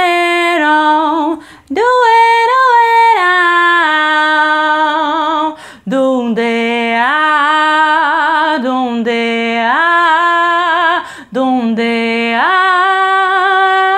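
A woman singing a cappella, a wordless vocalise of long held notes with vibrato and sliding pitch, in four phrases broken by short breaths.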